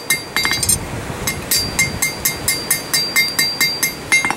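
A blacksmith's hand hammer strikes steel on an anvil in a quick steady rhythm of about four to five blows a second. Each blow rings bright and metallic. The blows pause briefly about a second in.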